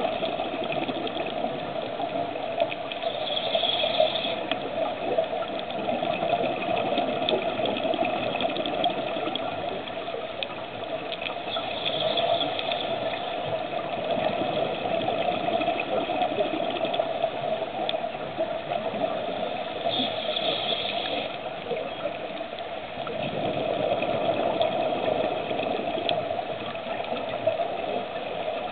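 Underwater sound of scuba divers breathing through regulators: a steady rush and bubbling of exhaled air, with a brief higher hiss about every eight seconds.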